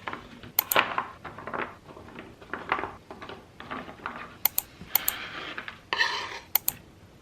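Kitchen prep sounds: a run of irregular sharp clicks and taps of utensils and produce being handled, a few with a bright ringing edge, and a short rustle about five seconds in.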